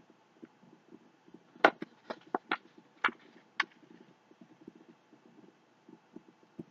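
Handling noise from unboxing: a quick run of about seven sharp clicks and crackles as items and packaging are handled, starting about a second and a half in, over faint low rustling.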